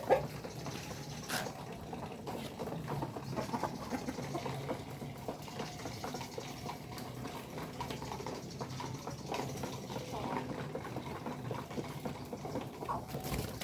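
Village chickens in a small coop making soft, scattered calls and small noises over a steady low hum.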